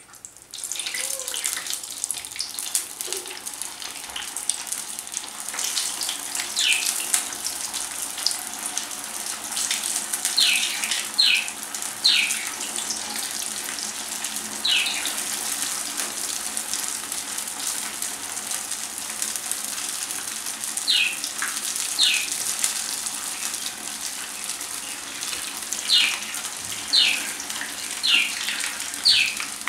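Potato-stuffed bread balls deep-frying in hot oil in a kadhai: a loud, steady sizzle that breaks out as they drop into the oil. Short, high, falling chirps cut through it in clusters, around the middle and again near the end.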